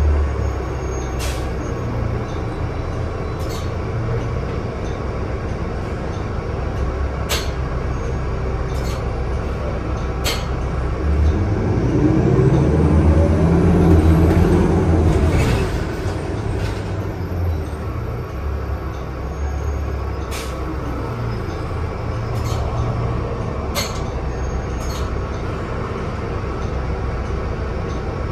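Inside a NovaBus LFS CNG city bus on the move: the Cummins 8.9 L ISL-G natural-gas engine and road noise run steadily, with sharp interior rattles now and then. Near the middle the sound grows louder for a few seconds, its pitch rising and then falling back.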